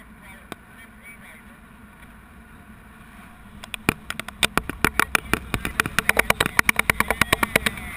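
Airflow buffeting a GoPro in flight under a swinging paraglider: a steady rush, then from about three and a half seconds in a fast run of sharp flapping slaps, several a second.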